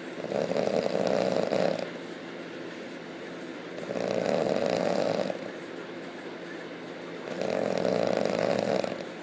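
A person snoring loudly: three rasping snores, each about a second and a half long, coming about every three and a half seconds, with quieter breathing between them.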